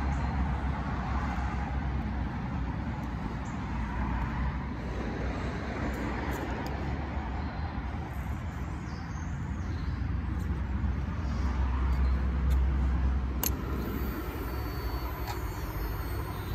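Road traffic noise: a steady low rumble that swells a little around eleven to thirteen seconds in, with one sharp click about thirteen and a half seconds in.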